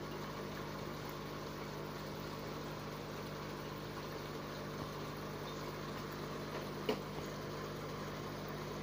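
Steady electric hum of an aquarium pump running, with a single short click about seven seconds in.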